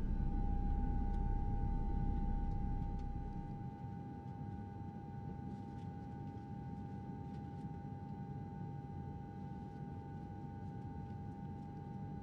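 A steady, high-pitched hum holding one tone over a low rumble; the rumble drops away about three seconds in, and the hum carries on with a few faint clicks.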